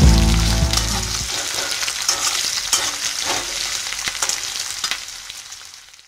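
Chopped onions sizzling as they fry in oil in a metal wok, with a metal spatula scraping and clicking against the pan as they are stirred. Background music stops about a second in, and the sizzle gradually fades toward the end.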